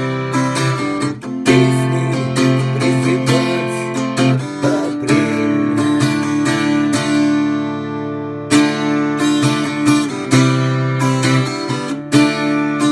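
Instrumental music: an acoustic guitar strumming chords in a steady rhythm, without singing.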